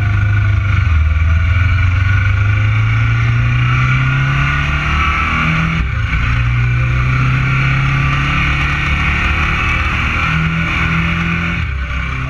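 Ducati 900 SS's air-cooled L-twin engine pulling under way, heard from a camera on the bike: its pitch climbs steadily, drops back about six seconds in, then climbs again before fading out near the end.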